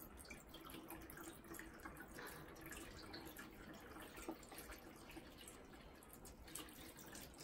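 Water being poured from a stainless steel saucepan into an automatic cat water fountain, a faint steady trickle and splash.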